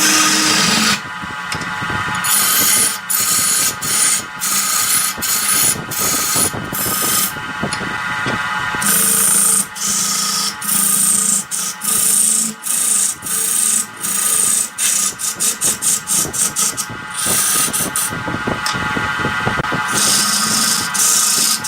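Wood lathe running while a turning tool cuts a spinning wooden vase blank. The cutting hiss starts and stops with each pass, in a run of short quick strokes over the middle of the stretch, over a steady tone.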